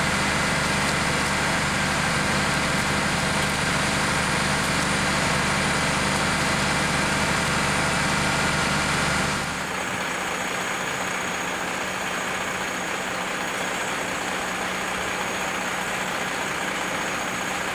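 A fire engine's engine running steadily close by. About nine and a half seconds in, the low rumble drops away and a quieter steady mechanical hum with a thin high whine carries on.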